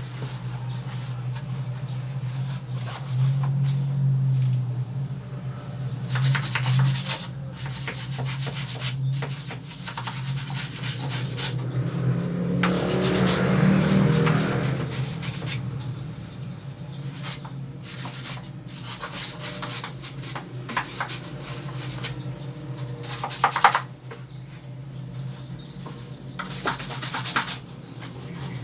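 A brush scrubbing during the cleaning of a window air conditioner, in irregular runs of rubbing strokes, with a steady low hum underneath.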